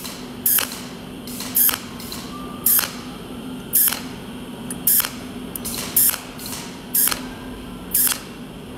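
Cold welding machine firing short arc pulses about once a second, each a brief hiss, as it fuses 0.8 mm red copper filler wire onto iron plate one overlapping spot at a time. A steady low hum runs underneath.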